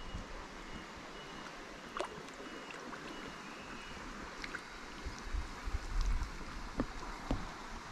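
River water rushing steadily over stones, with a few faint clicks here and there.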